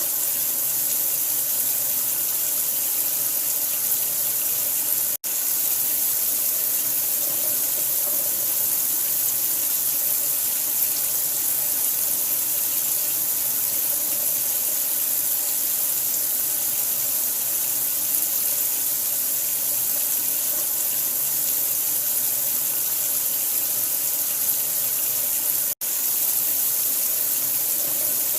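Steady rush of running water with a bright hiss, unchanging in level, cut off for an instant twice.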